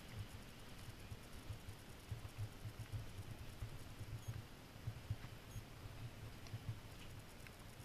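Quiet room tone with faint, irregular low thumps and rustling from a handheld camera being carried and panned.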